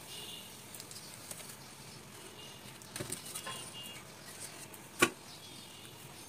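Crisp rice-flour net pancake being peeled and lifted off an earthenware griddle: light clicks and scrapes about three seconds in. A single sharp knock about five seconds in.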